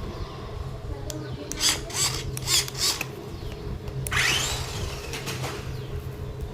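Toy RC car running: its small electric motor whirs steadily, with a quick run of knocks about halfway through and a loud scrape about four seconds in.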